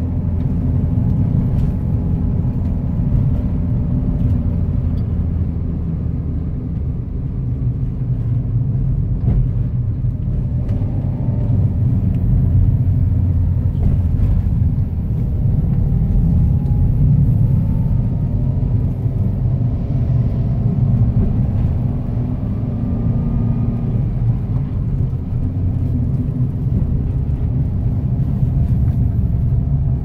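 Car driving on the road, heard from inside the cabin: a steady low rumble of engine and tyre noise that swells slightly midway.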